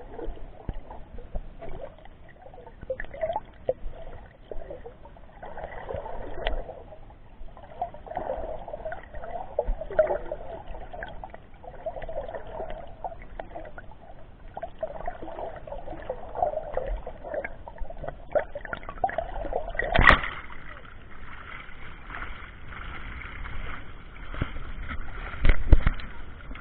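Muffled sloshing and churning of sea water heard through a camera's waterproof case as a swimmer dives in waves, with a sharp knock about twenty seconds in and a few low thumps near the end.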